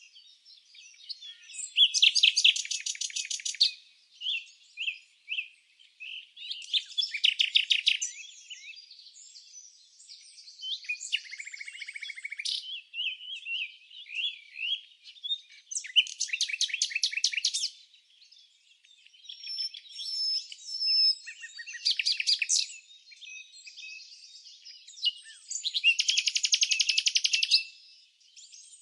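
Songbirds singing: loud, rapid trills of a second or two each, repeated every few seconds, with softer chirps and whistles between.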